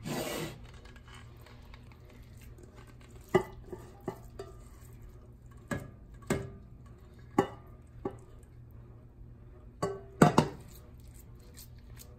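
A spatula scraping meatloaf mixture out of an enamel mixing bowl into a ceramic baking dish, with about ten sharp, scattered knocks and clinks of the spatula against the bowl and dish, the loudest about ten seconds in.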